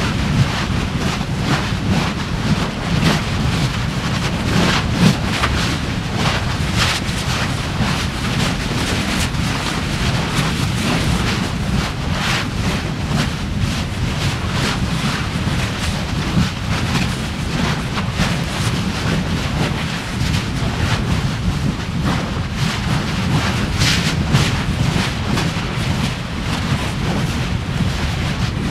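Basaltic fissure eruption heard up close: a steady low rumble of erupting lava with sharp pops and cracks of spattering lava at irregular intervals.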